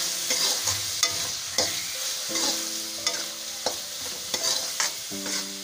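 Onion and spice masala sizzling in oil in a steel kadai while a spatula stirs it, scraping and knocking against the pan.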